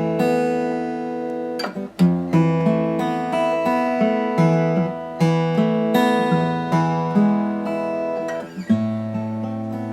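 Restored Espana acoustic guitar being played: a run of strummed and picked chords, each attack ringing on into the next.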